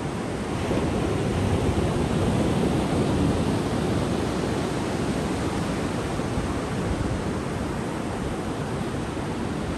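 Ocean surf on a sandy beach: the steady wash of breaking waves, swelling louder about a second in and easing off again after about four seconds.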